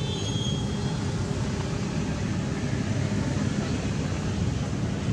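Steady low rumble of road traffic, with a faint high thin tone during the first second.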